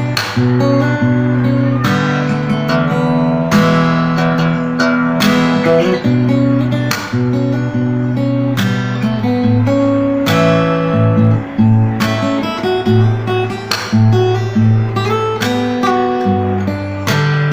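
Acoustic guitar strung with D'Addario EZ910 light-gauge 11–52 strings, played fingerstyle: a picked melody over a moving bass line, the notes ringing on.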